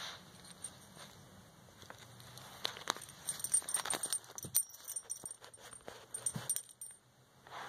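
Small dog scuffling with a plush toy on carpet: soft rustling with scattered light clicks and taps, a few louder ones through the middle.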